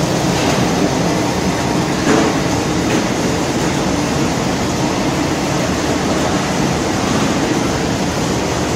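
Industrial hot-air popcorn production line running: steady, loud machinery noise from its motors and blowers, with a brief knock about two seconds in.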